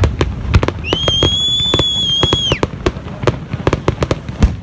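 Aerial fireworks bursting: a rapid, irregular string of bangs and pops over a low rumble. About a second in, a high steady whistle joins them for about a second and a half, then drops off.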